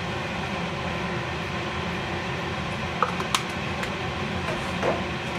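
A fan running with a steady hum, with a few light clicks a little after three seconds in and another near the end.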